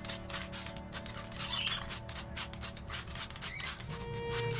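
Background music with a fast, even beat of crisp high ticks over steady low tones.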